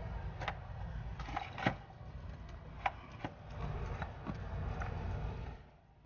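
Heat gun blowing steadily while the end of a PVC pipe is heated to soften it, with a few light clicks and knocks of the pipe being handled. The blower cuts off shortly before the end.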